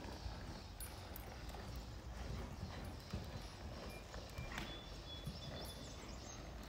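A horse's hoofbeats on the soft sand footing of an indoor arena: dull, irregular thuds as it moves, with one sharper click about four and a half seconds in.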